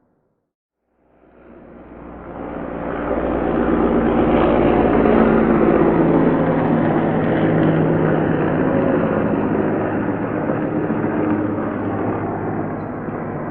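Heavy military transport helicopter flying, fading in about a second in and growing loud within a few seconds. It holds a steady droning hum over a low rumble, then eases off slightly near the end.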